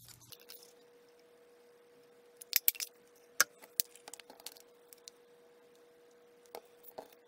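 Stampin' Up word window punch cutting through card stock: a cluster of sharp clicks about two and a half seconds in, then one sharp click and lighter tapping as the punch is handled. Near the end come two small clicks as a glue bottle is opened.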